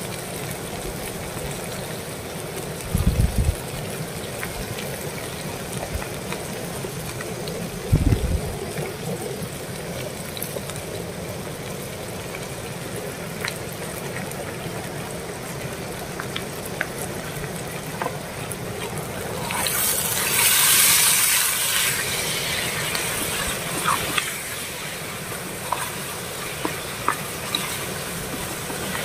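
A pan of onion-and-tomato curry simmering on a portable gas stove, a steady hiss with a few light clicks. Two dull thumps come about three and eight seconds in, and a louder hissing rush lasts about two seconds two-thirds of the way through.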